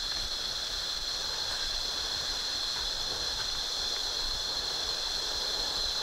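Steady, high-pitched drone of forest insects over the even hiss of flowing stream water.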